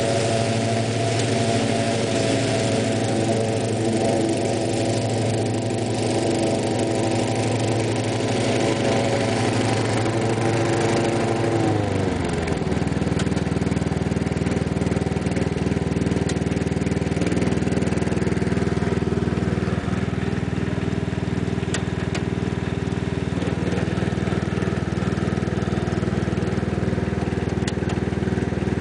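1994 Sears Craftsman lawn tractor engine running steadily; about twelve seconds in its pitch drops and it settles at a lower speed, still running.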